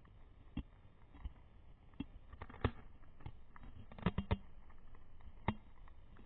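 Dog gnawing a bone, its teeth making irregular sharp crunches and cracks, with a quick run of three just after four seconds.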